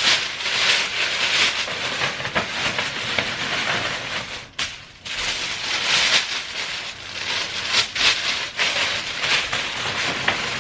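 Gift-wrapping paper rustling and crinkling as a present is wrapped by hand, an uneven run of papery noise with a brief lull about four and a half seconds in.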